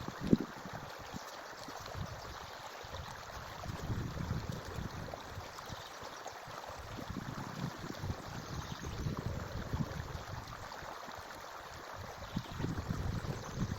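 Forest stream running steadily, with low rumbling swells now and then and one sharp knock just after the start.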